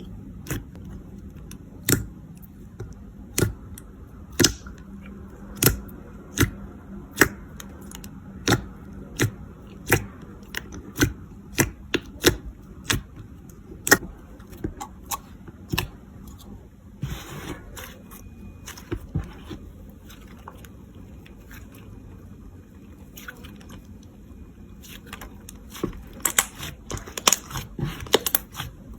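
Hands working clay slime: sharp sticky pops repeat about every two-thirds of a second for the first half, then a quieter stretch of squishing and rubbing, and a quick flurry of crackling pops near the end.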